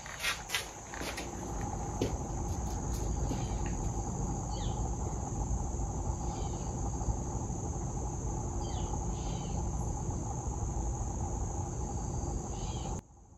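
Insects, such as crickets, droning steadily in a high pitch, with a few faint short bird chirps and a few sharp clicks in the first second. The sound cuts off suddenly near the end.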